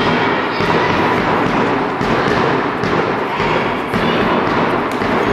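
Thuds of a handball and players' feet on a sports hall floor over a steady, echoing din from the hall.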